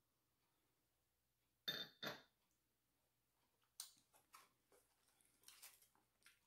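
Mostly near silence. About two seconds in, a woman who has just sipped a drink makes a short two-part throat noise. Later come a few faint crinkles of the checkered paper basket liner as the fries and fish sandwich are handled.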